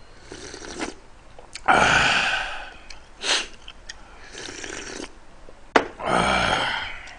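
A man slurping hot, spicy seafood ramen broth from a metal ladle: a run of breathy sucking slurps, the loudest about two seconds in, then a loud open-mouthed exhale near the end.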